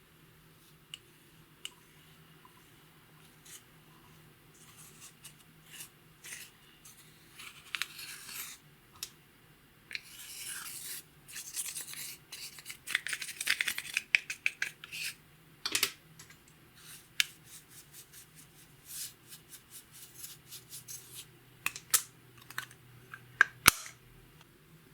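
Close-up scraping, rubbing and sharp clicks from handling makeup and clear slime. The clicks start sparse, thicken into a stretch of steady scraping in the middle, then scatter again with a few louder snaps near the end.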